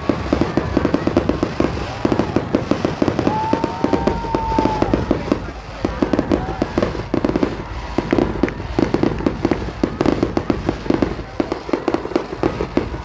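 Fireworks going off in a dense, rapid crackle of many pops a second throughout. About three seconds in, a high whistling tone lasts over a second.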